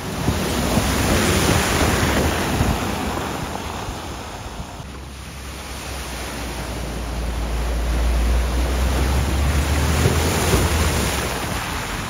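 Cars driving through a flooded ford, their bow waves rushing and splashing. The water noise swells twice, first in the opening seconds and again, longer and with a deep rumble, from about seven to eleven seconds in.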